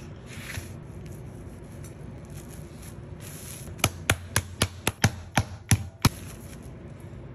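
A metal meat mallet pounding a chicken breast flat through plastic wrap on a wooden cutting board: about nine quick blows, roughly four a second, starting about four seconds in. Before them, faint rustling of plastic packaging.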